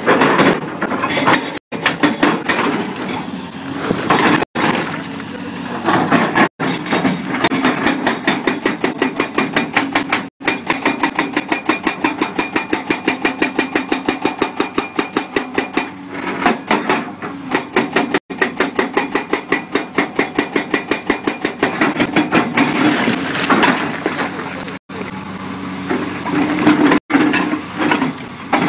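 CMB CM 550 TP hydraulic breaker on a CAT 345 excavator hammering in a rapid, even stream of blows. The excavator's engine runs steadily underneath. The hammering is more broken near the start and end, and a few brief silent gaps interrupt it.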